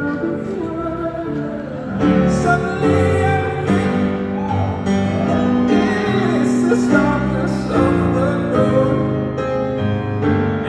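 A man singing while playing a Steinway grand piano: sustained piano chords under a slow sung melody, swelling louder about two seconds in.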